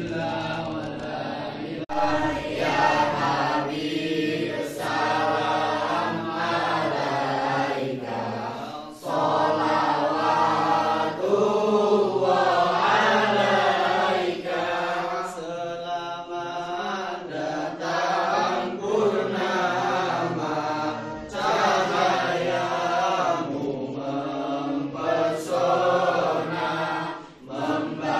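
A group of young voices chanting a devotional song together, with short breaks between phrases.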